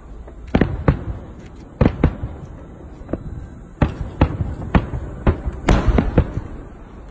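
Aerial fireworks bursting: about a dozen sharp bangs in irregular clusters, each trailing off in a low rumble.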